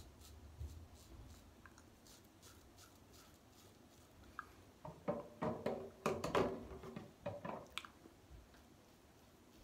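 Gillette Fatboy double-edge safety razor with a Treet Platinum blade scraping stubble on the upper lip: a quick run of short scratchy strokes starting about five seconds in and lasting about three seconds.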